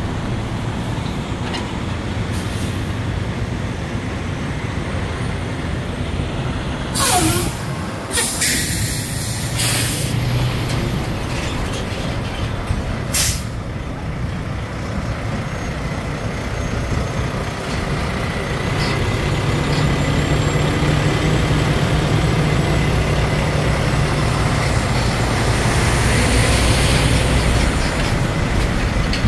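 Diesel semi-trucks hauling shipping containers idling and rolling past, a steady low engine rumble, with several sharp air-brake hisses between about seven and thirteen seconds in and a brief falling brake squeal. From about two-thirds of the way in, a truck engine close by grows louder and holds a steady hum.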